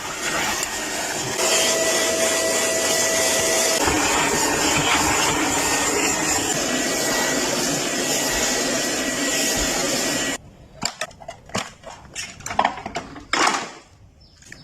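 Vacuum cleaner running steadily with a loud suction hiss and a faint whine. About ten seconds in it cuts off suddenly, and a few short, irregular knocks and noises follow.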